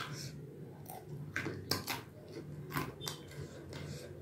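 Close-miked chewing of ripe mango: a run of soft, wet mouth clicks and smacks, clustered in two short bursts, over a low steady hum.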